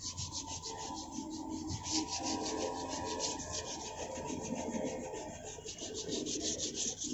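Sandpaper rubbed by hand over a car's painted bumper in quick, even back-and-forth strokes, several a second. It is a scratchy rasping that sands down the old paint before the car is repainted.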